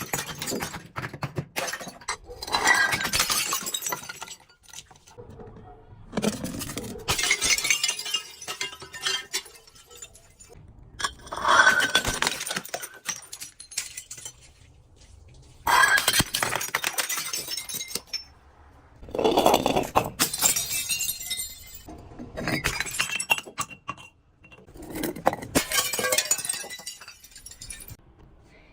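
Glass bottles breaking one after another, about eight smashes a few seconds apart, each a crash of shattering glass followed by tinkling shards.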